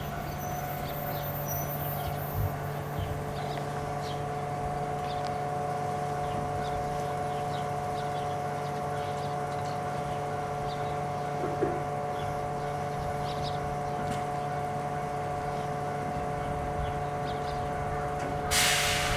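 JR Hokkaido 711 series electric train standing still, its onboard equipment giving a steady hum of several held tones. A sudden loud hiss starts near the end.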